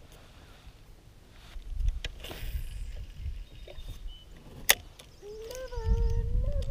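Handling noises in a plastic kayak: light knocks and low rumbles, with one sharp click about two-thirds of the way through. Near the end a steady, slightly wavering whine sets in.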